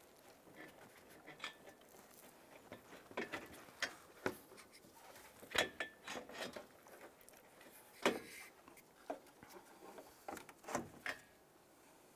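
Irregular light knocks, clicks and rattles of a radiator and the plastic and rubber parts around it being handled and worked down into its mounts in the engine bay, the loudest knocks about five and a half and eight seconds in.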